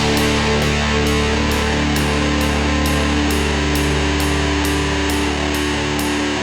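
Heavy rock music: distorted electric guitar holding long low notes over a steady beat of about two hits a second.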